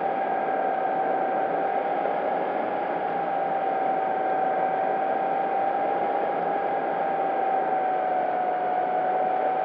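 Electric brushless motor and propeller of an RC warbird, heard from on board in flight: a steady whine at constant throttle over the rush of airflow.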